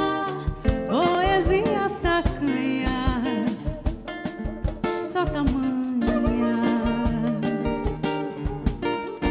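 Live samba band playing: a woman sings a bending melody with one long held note about halfway through, over strummed acoustic guitar and steady hand-drum strokes.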